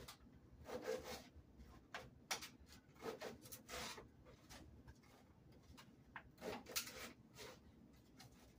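Knife slicing a green bell pepper over a plate: a string of faint, short, crisp cuts and scrapes at an uneven pace.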